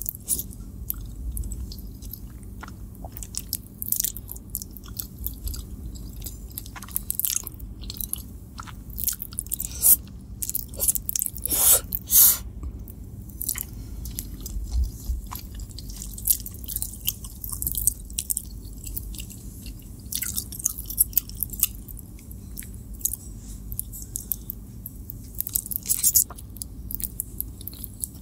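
Close-miked eating sounds of spaghetti carbonara: noodles drawn into the mouth and chewed, with many small wet clicks and smacks and a few louder bursts about a third of the way in.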